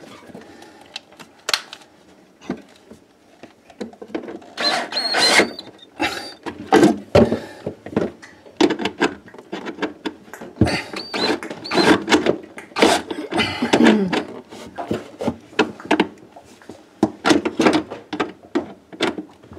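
Cordless drill-driver running in several short runs as screws are driven into a plastic evaporator fan housing, with clicks and knocks from the housing being pushed into place.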